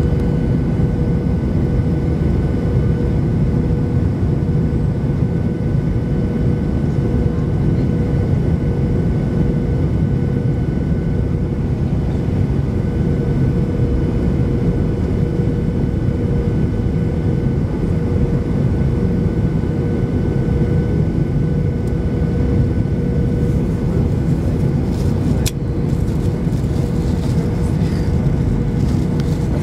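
Cabin noise inside an Airbus A310 on final approach: the steady hum and airflow noise of its turbofan engines, with a steady tone running through it. Near the end, a run of rattles and one sharp knock as the airliner touches down on the runway.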